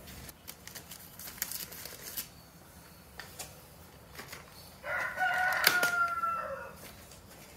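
A rooster crows once: a single crow about two seconds long, starting about halfway through and dropping in pitch at the end. Before it come a few clicks and crinkles from handling plastic sheeting and a roll of duct tape.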